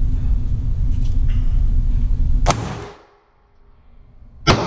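Two shots from a Springfield Armory Hellcat 9mm micro-compact pistol, about two seconds apart, the second the louder, each echoing in an indoor range. A low rumble runs before the first shot and stops with it.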